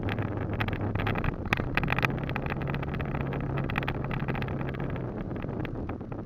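A vehicle engine running at low speed with a steady low hum, a second higher hum joining about a second and a half in and dropping away near five seconds, and frequent small clicks and rattles.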